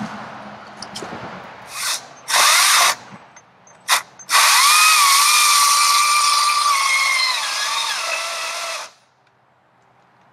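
Battery-powered Stihl electric chainsaw: a few short blips of the trigger, then a run of about four and a half seconds cutting into a fallen log. Its motor whine steps down in pitch near the end, and it stops abruptly.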